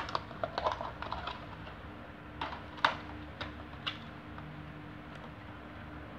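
Sharp plastic clicks and small knocks as a battery is pressed into a quartz wall-clock movement's battery holder and the clock is handled, most of them in the first four seconds.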